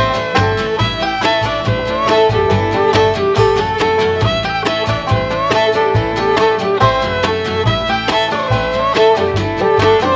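Background music: an upbeat bluegrass-style tune with fiddle over fast-picked guitar and banjo and a steady beat.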